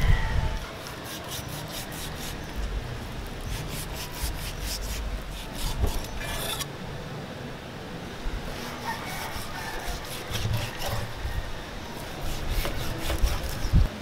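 Kitchen knife slicing raw pork on a wooden tree-stump chopping block: scraping cuts with many sharp ticks, and a few dull knocks of meat and blade on the wood.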